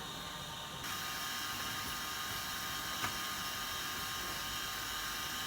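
Steady machine drone with a constant whine, which suddenly gets louder about a second in; a single sharp click about three seconds in.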